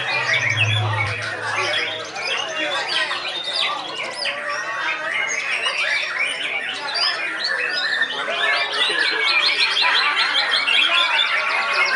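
Dense chorus of caged songbirds singing at once, with loud, rapid, overlapping trills, chirps and harsh calls that never pause. A young white-rumped shama is among the singers.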